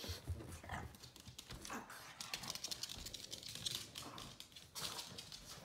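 Quick, light clicking of a pug's claws on a hard laminate floor, mixed with soft footsteps.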